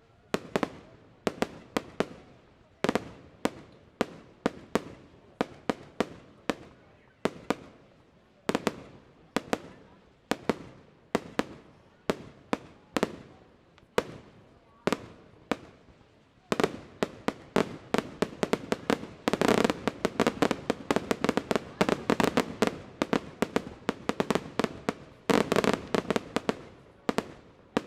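Fireworks display going off in sharp bangs, starting suddenly and coming about one or two a second, then from about halfway through a faster barrage of many bangs close together, thickest about two-thirds of the way in and again near the end.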